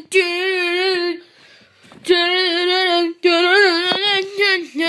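A voice singing a made-up wordless tune: the same note is held with a slight waver in three long phrases, with short breaks between them, and the last one dips in pitch near the end.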